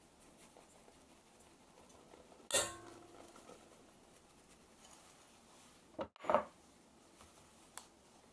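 A glass bowl clinks against a stainless steel mixing bowl, which rings briefly, as bread flour is tipped in. Two more sharp knocks come about six seconds in, and a light tick near the end.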